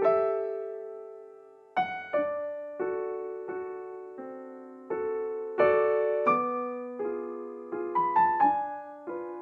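Slow, gentle piano music: single notes and soft chords struck one after another, each ringing and fading before the next.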